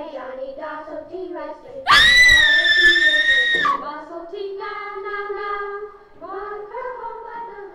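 A child's voice singing a slow melody. About two seconds in, a loud, high scream cuts in and holds for nearly two seconds, then the singing goes on.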